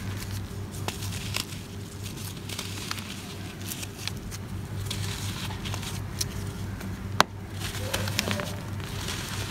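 Dry, chalky floor chunks being crushed and crumbled by hand: a dense run of small crunches and crackles as the lumps break and grit trickles down, with one sharp crack about seven seconds in. A steady low hum runs underneath.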